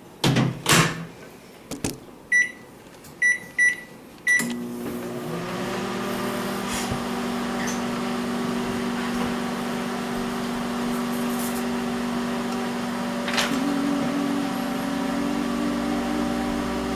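A few knocks, then four short keypad beeps, and the microwave oven starts up about four seconds in, running with a steady hum. It is heating a block of dry ice.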